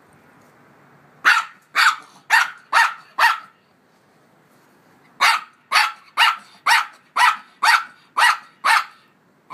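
Maltese puppy barking in play at another puppy, sharp barks about two a second: five, a pause of about two seconds, then eight more.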